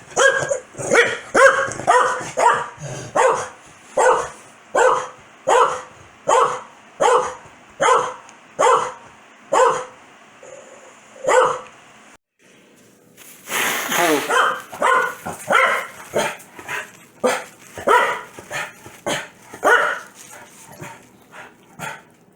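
Corgi barking over and over at a sneeze, one or two barks a second. The barking breaks off about twelve seconds in, then starts again in a second run that grows fainter near the end.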